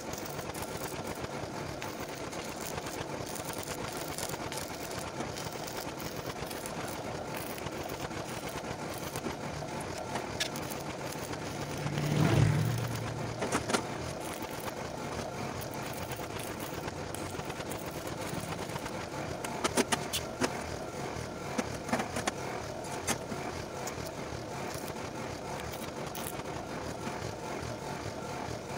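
Steady crackling hiss of stick (arc) welding on a steel grille frame. About twelve seconds in a motor vehicle swells past with a low hum, the loudest sound, and later a few sharp metal clinks come as steel bars are handled.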